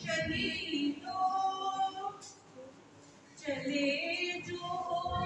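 A woman singing into a microphone, holding long notes, with a short pause about halfway through.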